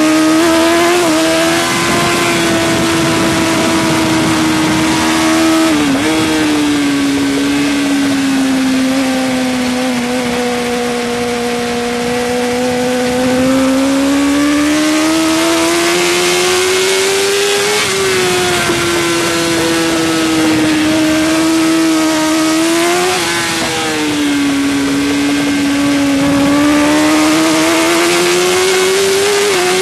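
Suzuki GSX-R1000 K5 superbike's inline-four engine running hard, heard onboard at track speed. Its pitch climbs slowly under acceleration and drops or jumps abruptly a few times at gear changes and throttle changes. A rushing hiss swells twice.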